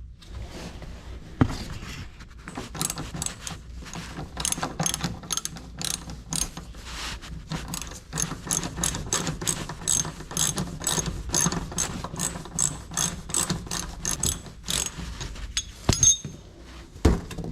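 Hand ratchet clicking in a long, even run of rapid clicks as it undoes a fastener of a plastic underbody cover, with a few single knocks near the start and end.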